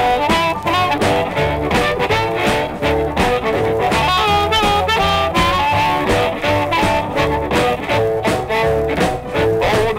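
Blues band recording: a wailing harmonica lead with bending notes over guitar and a steady rhythm section, no singing.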